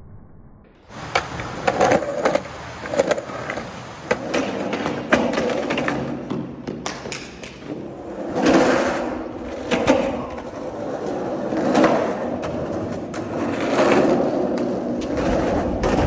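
Skateboard wheels rolling over rough concrete, with sharp clacks and knocks from the board and trucks, the rolling noise swelling and fading several times. It starts about a second in.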